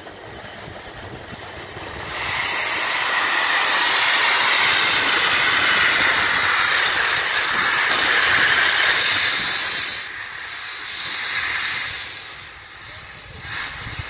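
Steam hiss from an LMS Black Five 4-6-0 steam locomotive, its cylinder drain cocks open as it pulls away. The hiss starts loud about two seconds in, dips about ten seconds in, comes back briefly and then fades near the end.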